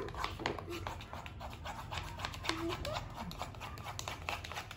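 A plastic spoon stirring and scraping a thick toothpaste-and-salt mixture in a plastic bowl, giving many small irregular clicks and taps, over a steady low hum.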